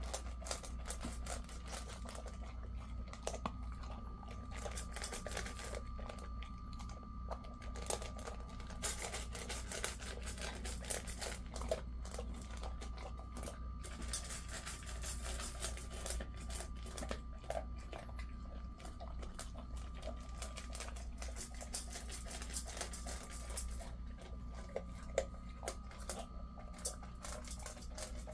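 Jindo dog eating dry kibble from a stainless steel bowl: steady irregular crunching and clicking of pellets against teeth and metal, over a low steady hum.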